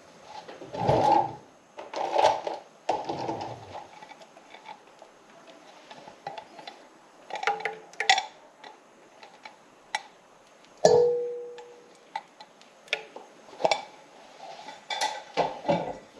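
Canned coconut milk being emptied into a metal saucepan: irregular knocks and scrapes of can, spoon and pan, with one clank about two-thirds of the way through that rings briefly.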